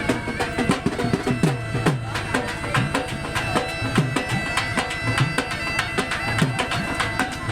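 Background music: a droning, pipe-like melody over a steady drum beat.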